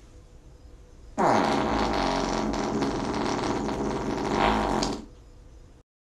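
One long, buzzy fart lasting nearly four seconds, starting about a second in and falling in pitch at its onset before holding steady.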